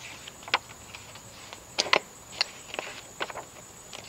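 Glossy pages of a paper brochure being flipped through by hand: an irregular run of sharp page slaps and rustles, the loudest a quick cluster a little under two seconds in.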